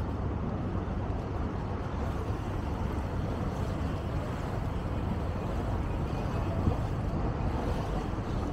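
Sightseeing boat's engine running with a steady low drone.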